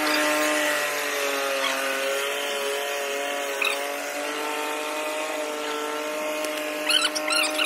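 Mini tractor engine running as the tractor drives off, its pitch wavering slightly with the throttle. A few brief high chirps sound near the end.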